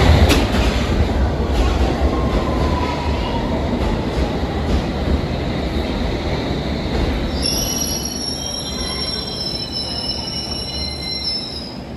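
Train running on the rails with a steady low rumble that slowly dies down. From just past halfway, the wheels squeal on the track: several high, steady tones that last until near the end.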